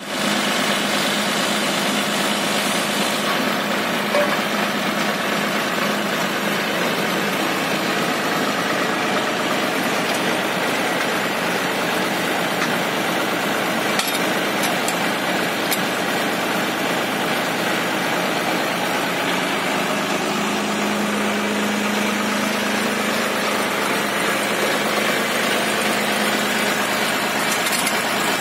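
Tractor's diesel engine idling steadily, with a brief knock about four seconds in.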